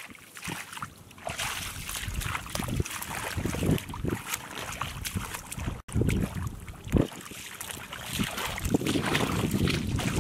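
Hands and feet sloshing and splashing through shallow muddy water in irregular splashes, with a momentary break in the sound a little over halfway.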